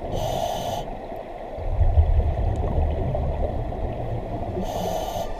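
Scuba diver breathing underwater through a 1950s Mistral double-hose regulator. There is a short hiss of inhalation, then about three seconds of low bubbling from the exhaled breath, and another inhalation hiss near the end.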